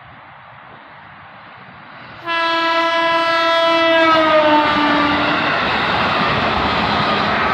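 Horn of a KRL commuter electric train sounding suddenly about two seconds in: one blast of about three seconds that falls slightly in pitch toward its end. The loud rush of the passing train follows.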